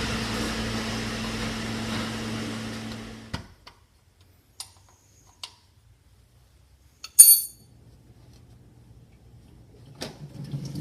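A steady machine hum cuts off with a click about three seconds in. Then scattered light clicks and one short, sharp metallic clink about seven seconds in, with faint handling noises near the end.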